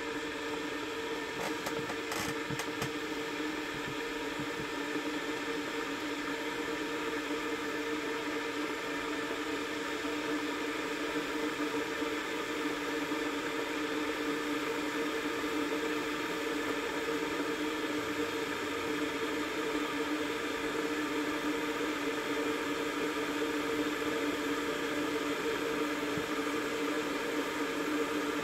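Kettle heating water toward the boil: a steady hiss and hum that grows slowly louder.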